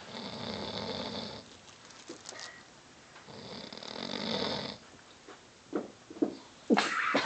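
Snoring: two long snores, each about a second and a half, a couple of seconds apart, then a louder burst of short, sharp sounds near the end.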